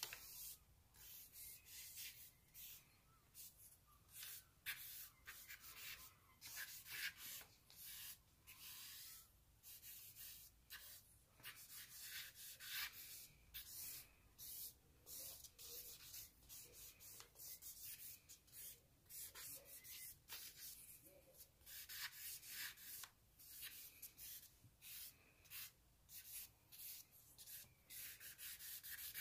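Charcoal stick scratching across sketchbook paper painted with an acrylic wash, in many short, quick, irregular strokes. Faint.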